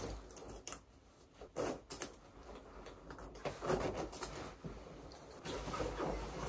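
Rustling of a leather shearling jacket as it is put on and adjusted, with light clicks of its metal buckle and zipper hardware.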